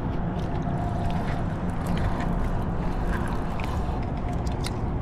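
Fishing reel being cranked to wind in a small hooked striped bass, over a steady low rush of wind on the microphone.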